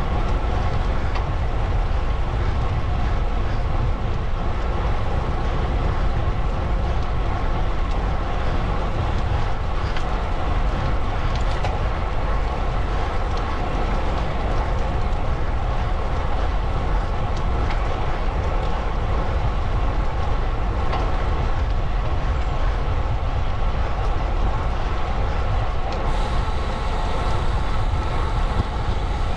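Steady rush of wind on the microphone with road noise, as heard while riding a bicycle.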